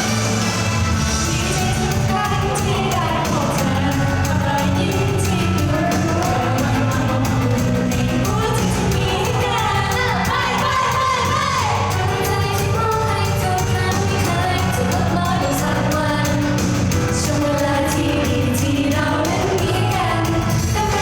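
Pop song performed on stage: a woman singing over an amplified backing track with a steady beat.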